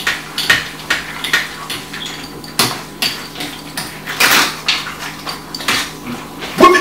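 A utensil clinking and scraping against a metal mixing bowl as a food mix is stirred by hand: irregular knocks, one or two a second, with a longer scrape a little past the middle.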